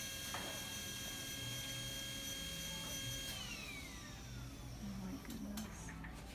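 A small motor's steady high whine that winds down in pitch and fades away about three seconds in.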